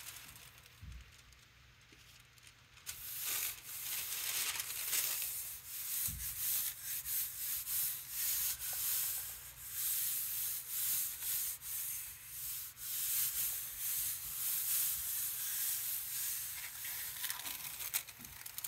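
Hands rubbing white tissue paper down onto an inked gel printing plate: a steady scratchy rustle of many quick strokes, starting about three seconds in. This is the rub that pulls a positive print.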